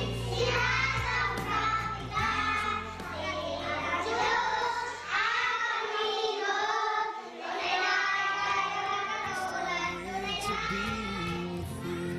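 A group of children singing together, with a backing song's low instrumental part under them for the first few seconds.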